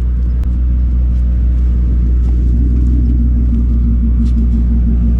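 Truck engine running with a steady low rumble. A faint steady higher tone joins about halfway through.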